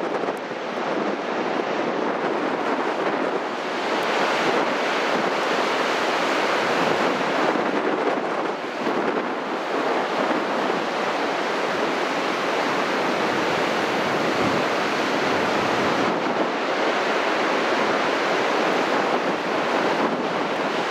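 Heavy storm surf from a nor'easter, breaking and washing up the shore in a steady, continuous rush, with wind buffeting the microphone.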